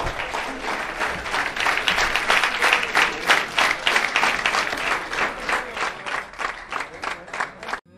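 Audience applause: dense clapping from many hands, steady throughout and cut off abruptly near the end.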